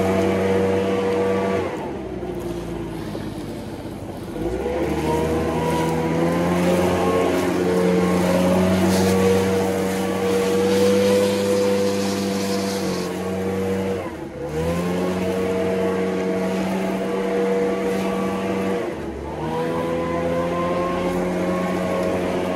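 Leaf blower engine running at high throttle. It is eased off for about three seconds about two seconds in and dipped briefly twice more later, each time rising back up in pitch.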